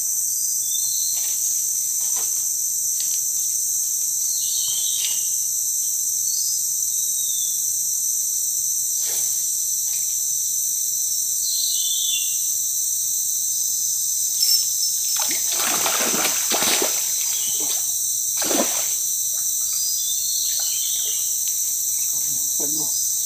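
Steady high-pitched chirring of forest insects throughout, with a burst of splashing in the water about two-thirds of the way in and one more splash shortly after, as a hooked forest snakehead (kihung) thrashes at the surface.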